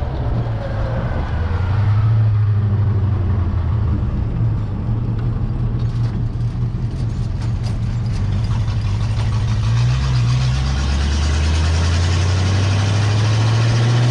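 Flathead Ford V8 of a 1929 Ford roadster pickup running under way, heard from inside the open cab. About ten seconds in the engine note breaks for a gear change, then climbs steadily in pitch as the truck accelerates in the next gear.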